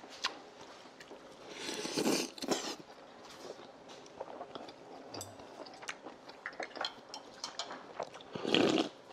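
Table-side eating sounds: chopsticks clicking against ceramic bowls and dishes, with chewing and mouth noises. Two louder rushes of noise stand out, about two seconds in and near the end.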